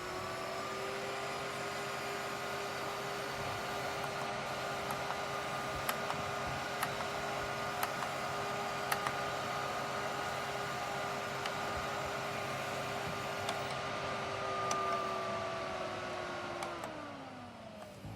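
Small electric fan of a portable evaporative air cooler running with a steady motor hum and airflow noise, with a few faint ticks. Near the end the hum drops in pitch and fades as the fan winds down.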